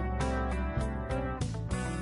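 Background music led by a strummed guitar, with a steady beat of about four strokes a second.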